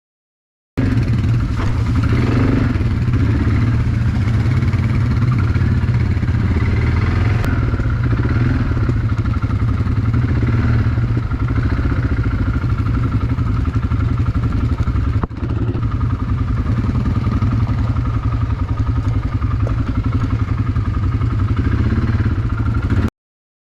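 A motor vehicle running steadily with a heavy low rumble while moving. It cuts in about a second in and stops abruptly near the end.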